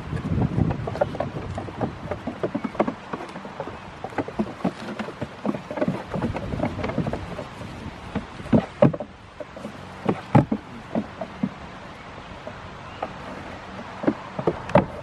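Goat kids' hooves clattering and stamping on a wooden platform as they spar, with sharper knocks from the butting, the loudest a few seconds past the middle and near the end.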